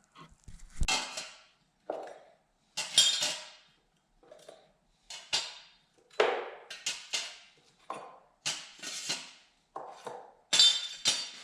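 Small steel lathe-chuck parts clinking and clattering against one another and their container as they are handled and put in to soak in solvent, with about a dozen irregular clinks.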